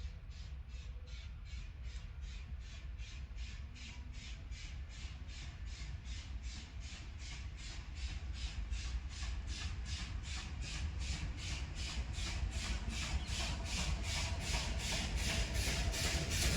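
WP-class steam locomotive working under steam: its exhaust chuffs in an even beat of about three a second over a low rumble, growing steadily louder as it draws closer.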